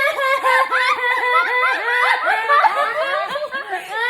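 Several women laughing together, with quick, overlapping bursts of laughter several times a second.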